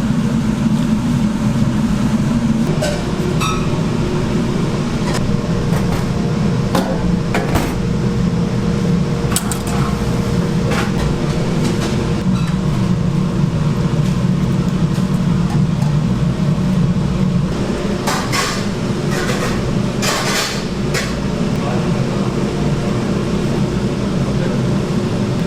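Restaurant kitchen and dining-room noise: a steady low hum with a murmur of voices under it, and scattered clinks and knocks of dishes and utensils, a quick cluster of them near the end.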